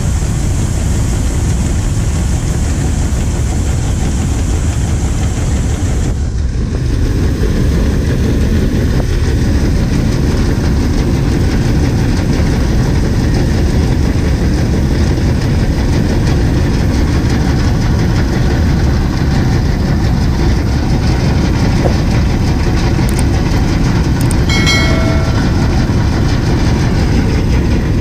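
Tractor-mounted wheat combine harvester, a tractor whose drive runs the threshing machine, running loudly and steadily while threshing, with threshed wheat pouring from its outlet.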